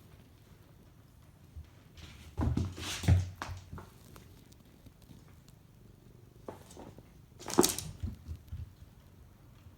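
Cats in a room: two short cat sounds, one about two and a half seconds in and another about seven and a half seconds in, over a faint background.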